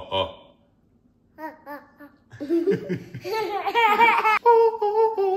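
A toddler girl laughing and giggling in long peals, with a few held high notes of her voice near the end. Right at the start a man sings three short, loud notes.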